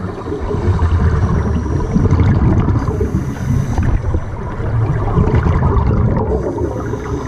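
Scuba diving underwater: regulator breathing and exhaled bubbles rising, heard muffled as a low, uneven rumbling gurgle that swells and eases.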